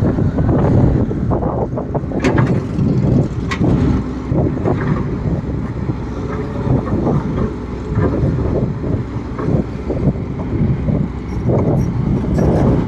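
Excavator's diesel engine working under load, with its level rising and falling unevenly and a few sharp clanks, the loudest about two and three and a half seconds in. Wind buffets the microphone.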